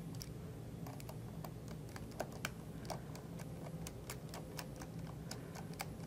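A 4-mm hex driver tightening Allen screws into a metal plate: irregular light clicks and ticks as the bit turns in the screw heads, with two sharper clicks a little over two seconds in, over a low steady hum.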